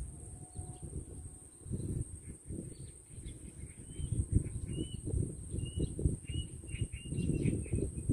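Wind buffeting the microphone in uneven low gusts, with a small bird giving a quick series of short chirps from about halfway through.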